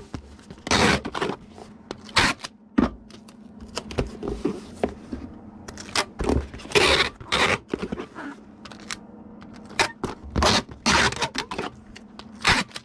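Packing materials handled by hand: irregular scraping and rustling of bubble wrap and a mailer as a figure is wrapped and packed, in short bursts of varying length.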